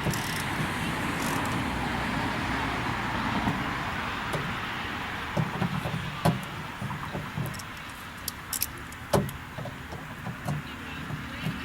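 Hand tools and metal door parts clicking, tapping and knocking as a car door's latch and exterior handle are worked loose, the knocks scattered through the second half. A steady rushing noise fills the first half and fades away.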